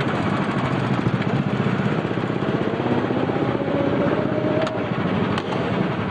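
Go-kart engine running as the kart drives along the track, a steady, rapidly pulsing engine sound.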